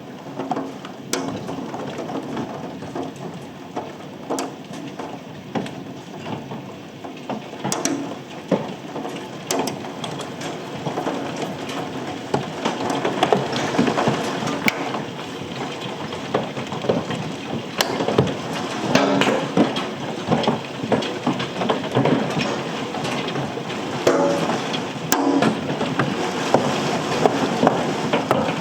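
Hailstones up to penny size falling with rain, a dense, irregular clatter of small hits that grows heavier about twelve seconds in.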